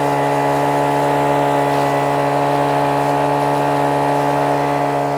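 Gas-engine-driven vac-pac prospecting vacuum running at a steady speed, a constant engine drone with no change in pitch.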